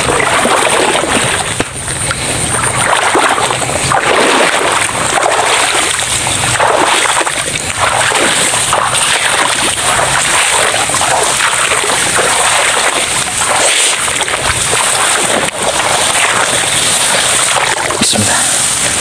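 Footsteps splashing and sloshing through waterlogged swamp grass, the stems swishing against the legs at each stride, in irregular surges about once a second.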